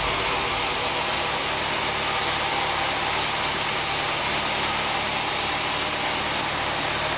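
Band sawmill running steadily: an even hiss with a low machine hum underneath, no change in pitch or level.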